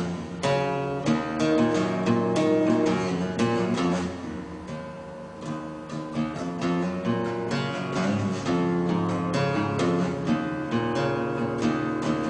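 Background music led by strummed and plucked acoustic guitar, with a softer passage about four to six seconds in.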